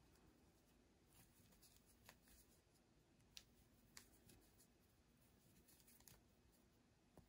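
Near silence, with a handful of faint ticks and rustles from a crochet hook and yarn as single crochet stitches are worked.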